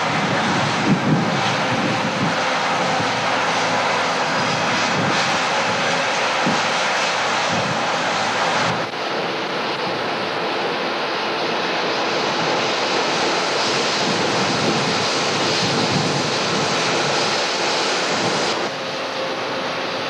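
John Deere 8820 combine harvesting: a loud, steady drone of its diesel engine and threshing machinery. The sound changes abruptly about nine seconds in and again near the end.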